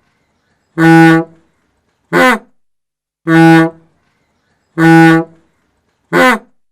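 Old Indian bus bhopu air horn honking five times. The honks are long, steady and at one pitch, mixed with two shorter honks that fall in pitch: long, short-falling, long, long, short-falling.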